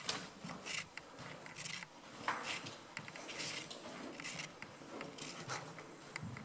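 Footsteps and small crunching, scraping sounds of someone walking across a littered carpeted floor: irregular light clicks and brief scratchy rustles, in a small echoing room.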